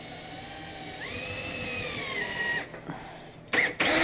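Cordless drill driving a screw into cabinet wood: the motor whines, speeds up about a second in, then slowly drops in pitch as the screw bites in, and stops. A few loud knocks follow near the end.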